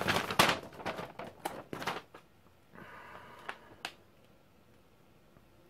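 A folded paper instruction sheet being pulled out and unfolded, with crisp crinkling and flapping in the first two seconds, then a few softer rustles and small ticks before it goes quiet.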